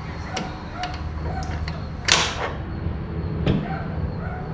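Hand tools working the brake booster mounting nuts: a few light metallic clicks, with a short scraping clatter about two seconds in and a smaller knock later, over a steady low hum.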